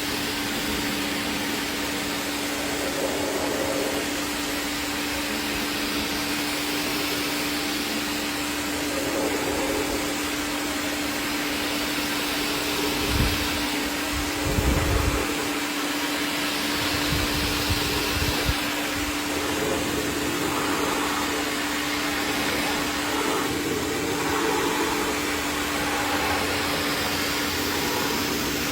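A cleaning machine's motor runs steadily, with rushing air over a constant hum. A few low thumps come around the middle.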